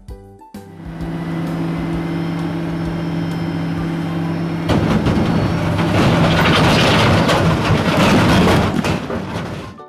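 Rigid dump truck's diesel engine running steadily, then revving louder and rougher about halfway through, and stopping just before the end.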